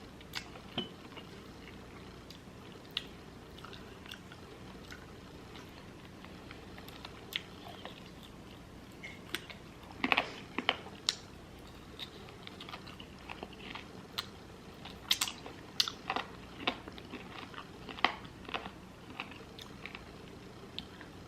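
A person eating: close-up chewing and biting with scattered sharp crunches and wet clicks, busiest about halfway through and again in the last third.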